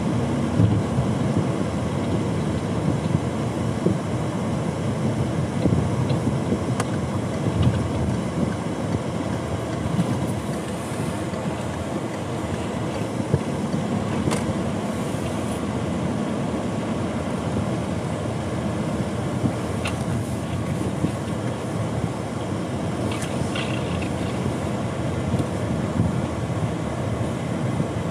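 Car driving, heard from inside the cabin: steady engine and road noise.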